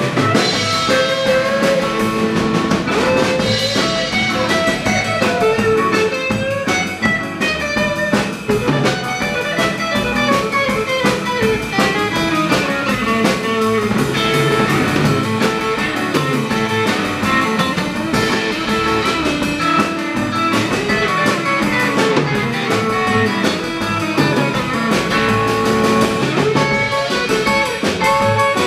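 A band playing live on guitars, upright bass and drum kit.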